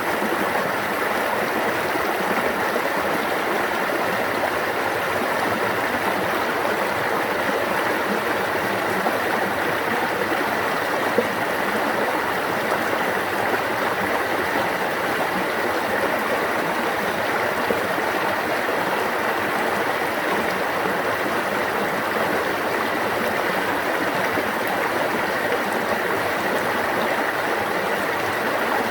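Stream water running steadily over rocks, a dense even rush of babbling and gurgling.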